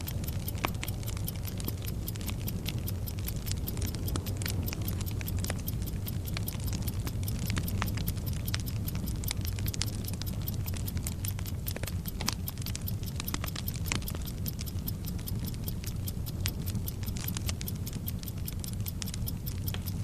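Sound-effect bomb fuse burning, with irregular crackles and hiss over a fast, even clock ticking and a steady low hum.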